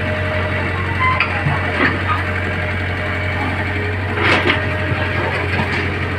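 A large engine of road-construction machinery running steadily with a low drone, with a few short knocks and clanks over it.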